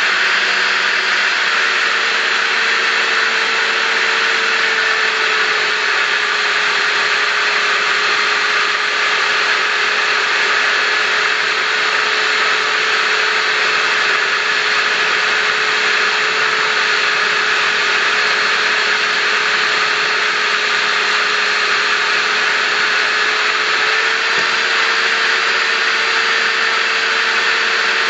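Einhell RT-BS 75 belt sander, mounted in a stand as a bench sander, running steadily and loudly while a strip of wood is sanded on the belt. The motor's hum sits a little lower under the load and rises back about four seconds before the end, when the wood comes off the belt.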